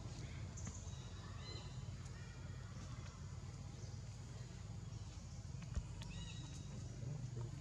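Outdoor ambience: a steady low rumble with a few short, faint high chirps and light clicks.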